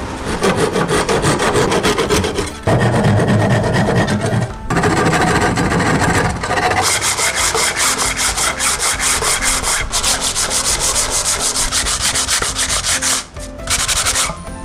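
Sandpaper rubbed back and forth by hand along old weathered wooden boards in quick, short strokes, with a few brief pauses. About seven seconds in, the scratching turns brighter and hissier.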